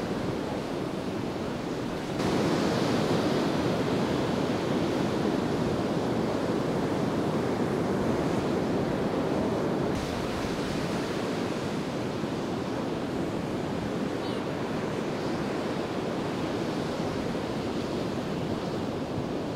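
Ocean surf breaking on a sandy beach: a steady rushing wash of waves. It gets louder suddenly about two seconds in and eases off a little about ten seconds in.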